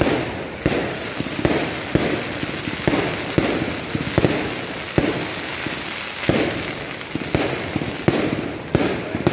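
Aerial fireworks display bursting overhead: a rapid series of sharp bangs, about one to two a second, with crackling and hiss between the reports.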